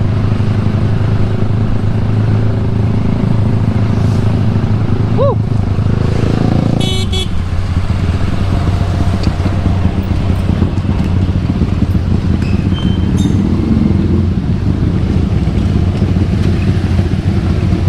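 Motorcycle engine running with road and wind noise. The note drops and settles about seven seconds in as the bike slows.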